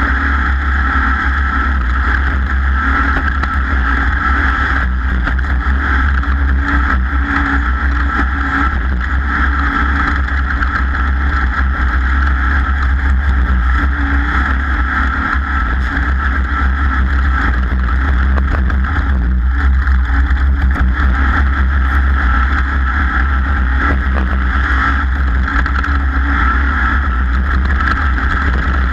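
A racing vehicle's engine running loud and steady, at a nearly constant speed, with no letting off.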